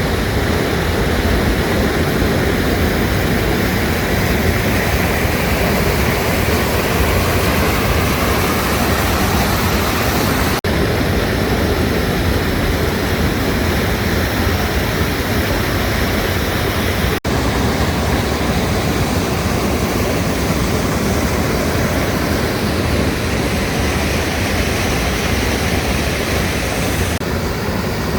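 Waterfall gushing: a steady, full rush of falling water with no rhythm, broken by two momentary dropouts about a third and two thirds of the way through.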